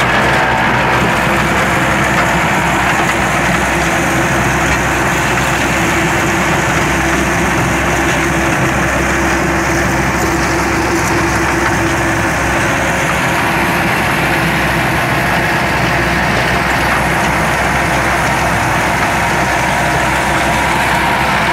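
New Holland T7200 tractor running steadily while driving a stone crusher working through rocky ground: one constant, loud mechanical noise with a steady hum through it.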